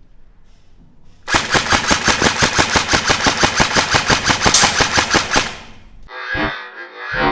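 Airsoft electric rifle firing one long full-auto burst: a rapid, evenly paced string of shots for about four seconds. Music starts near the end.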